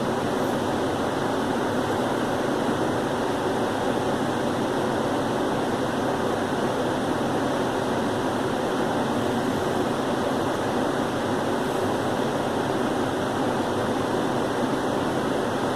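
A steady, even rushing noise with no breaks and no coughs.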